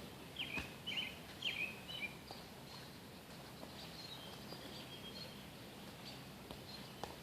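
A small bird chirping: four or five quick, slightly falling chirps in the first two seconds, then fainter, higher chirps a few seconds in, over a steady outdoor hiss.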